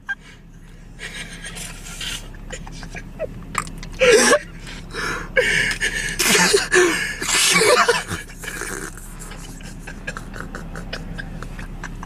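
Wordless human voices: breathy, gasping bursts with short vocal sounds, loudest about four seconds in and again between six and eight seconds.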